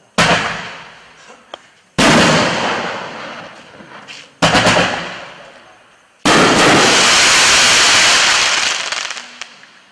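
Hot Fireworks' American Tribute 9-shot consumer cake firing its last shells: four loud bangs about two seconds apart, each fading away. The last is followed by about two and a half seconds of dense crackling from the golden crackling willow breaks, which fades out near the end.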